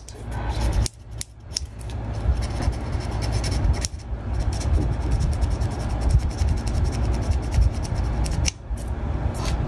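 Hand-sanding a seam on a small plastic scale-model engine part: quick back-and-forth rasping strokes, broken by short pauses about a second, four seconds and eight and a half seconds in.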